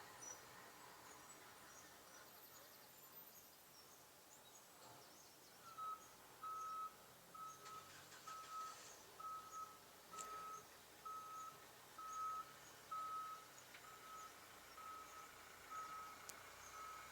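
Faint reversing-alarm beeping: a single high steady tone repeated a little over once a second, starting about six seconds in.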